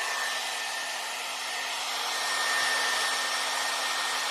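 Handheld hair dryer running steadily, blowing air with a high whine and a low motor hum over the rush of air.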